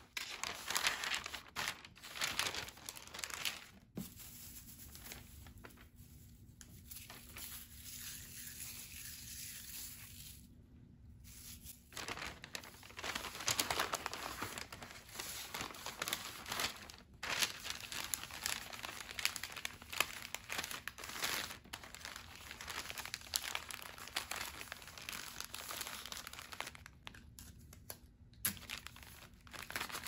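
Brown kraft paper bags handled and folded by hand: irregular crinkling and rustling of paper, with a quieter stretch and a brief pause about a third of the way through.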